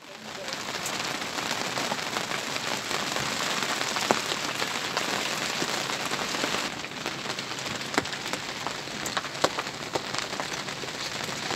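Steady rain falling on a sailing yacht's deck and canvas, a dense hiss with many sharp individual drop ticks, easing slightly about two-thirds of the way through.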